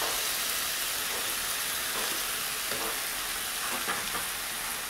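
Onions and curry leaves frying in a nonstick pan with a steady sizzle, stirred by a steel slotted spoon that scrapes the pan a few times.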